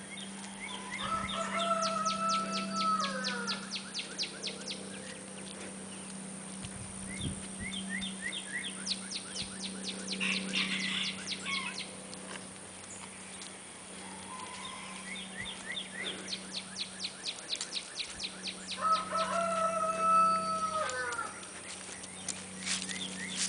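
A rooster crowing twice, once about a second in and again near the end, each crow a long held call that drops away at its close. Between the crows a bird trills several times in quick, rapidly repeated high notes, over a low steady hum.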